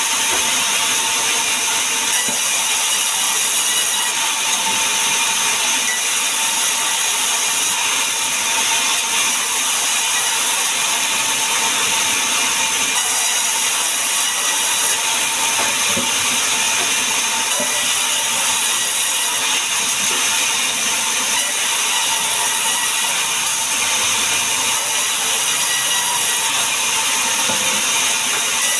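Large sawmill band saw ripping logs lengthwise, a steady loud high hiss of the blade cutting through the wood.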